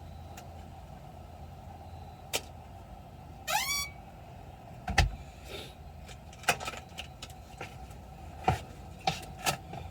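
Scattered small clicks and knocks over a steady low hum, with a short rising squeak about three and a half seconds in.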